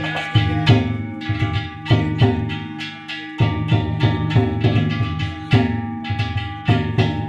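Danjiri float music: a taiko drum and small hand-struck metal gongs (kane) beaten over and over. The gongs ring on between the strokes.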